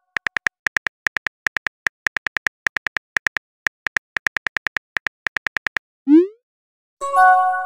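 Rapid phone keyboard tap clicks as a message is typed, several taps a second with short gaps. About six seconds in there is a short rising swoosh as the message is sent. Near the end a ringing message-notification chime follows.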